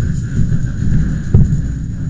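A heavy low rumble with one sharp strike a little past halfway through: a firefighting hand tool hitting the building's structure.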